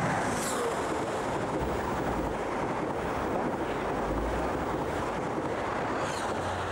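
InterCity 125 high-speed train passing through a station at speed: a loud, steady rush of wheels on rail and moving air. A brief falling high whistle sounds just after the start and again near the end.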